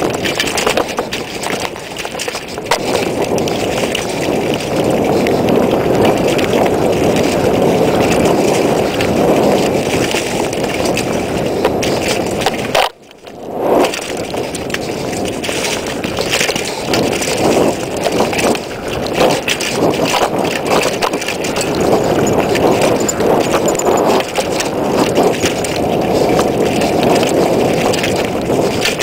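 Mountain bike riding fast downhill on a dirt trail: a steady rush of wind on the camera's microphone, with tyre roll and a constant clatter of small knocks and rattles from the bike. Near the middle the rush cuts out for a moment and comes back with a sharp knock.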